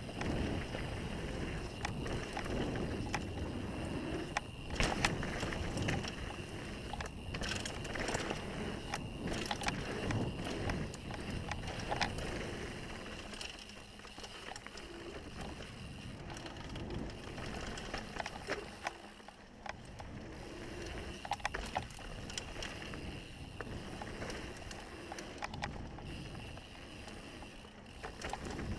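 Mountain bike riding over a dirt singletrack: tyres rolling on the dirt, with frequent clicks and knocks as the bike rattles over bumps. It is quieter for a few seconds in the middle.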